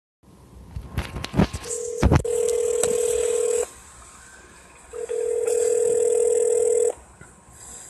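Telephone line clicking as an outgoing call connects, then the ringback tone sounding twice: a steady low tone about two seconds long, a short gap, then the same tone again while the call rings unanswered.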